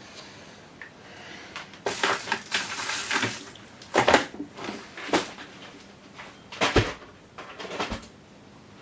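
A long hand screwdriver working screws out of a metal avionics rack: a stretch of scraping and rattling, then several separate sharp clicks and knocks, the loudest about four seconds in.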